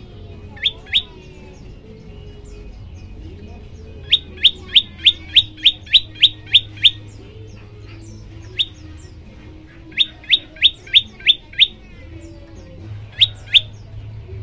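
Prenjak lumut (a prinia) calling: loud, sharp rising notes repeated about three times a second, in bursts of two, nine, six and two. Fainter chirps of other birds sound underneath.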